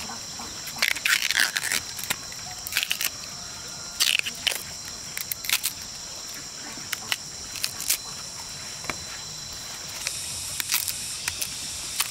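Husk layers being torn off a fresh bamboo shoot by hand, a series of short, irregular tearing and crackling strips every second or so. A steady high insect drone runs underneath.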